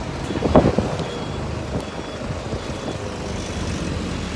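Heavy vehicle engine running steadily, with a reversing alarm beeping about once a second and a brief louder low rumble about half a second in.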